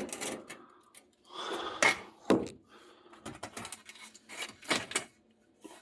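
Scattered knocks and clicks with a short rustle about a second in: things being handled and moved, close by in a small room.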